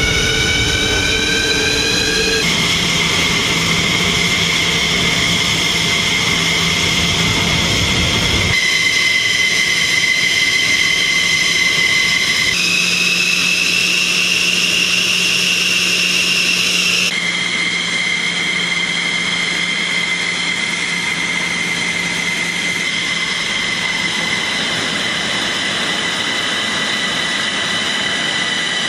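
F-16 Fighting Falcon's jet engine running on the ground with a loud, high-pitched turbine whine. The whine rises in pitch over the first two seconds, then holds steady, jumping abruptly to a slightly different pitch a few times.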